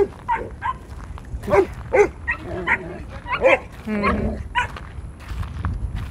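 Cane Corso puppies yipping and barking, about a dozen short high calls in quick succession, with one longer drawn-out yelp about four seconds in. The calls die down in the last second.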